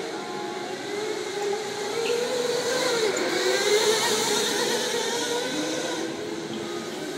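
Racing go-karts' motors whining, rising and falling in pitch as the karts speed up and slow through the corners, growing louder about four seconds in as a kart passes close.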